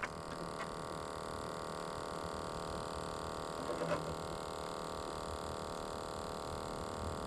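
A steady, unchanging hum, with one brief faint sound about four seconds in.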